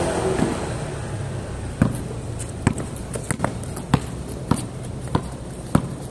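A basketball being dribbled on a concrete court: about eight separate bounces, irregularly spaced half a second to a second apart, starting about two seconds in.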